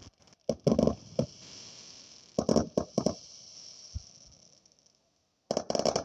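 Loud bangs in quick clusters of several shots: one group about a second in, another around two and a half to three seconds, and a third near the end. They sound like SA80 5.56 mm rifle fire.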